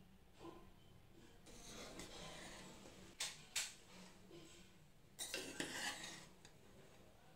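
Metal spoon scooping and turning cooked biryani rice in a dark cooking pot: soft rustling of the rice, two sharp clinks of the spoon against the pot about three seconds in, and a burst of scraping a couple of seconds later.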